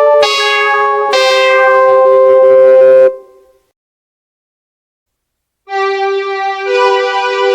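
Short synthesized musical stings of the kind used as transition sound effects. A sustained chord changes notes twice in the first second or so, is held, and cuts off about three seconds in. After roughly two seconds of silence a new sustained chord starts, and a higher note joins it about a second later.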